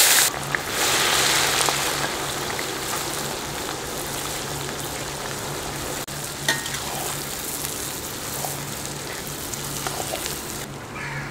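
Sliced onions tipped into hot oil in a large metal kadai, a loud sudden sizzle that settles into a steady frying hiss, slowly fading. Light scrapes and clicks from a metal spatula stirring the onions.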